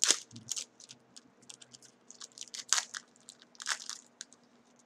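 Wrapper of a Fleer Metal Universe football card pack being torn open and crinkled: irregular sharp crackles, the loudest right at the start and a few more later on.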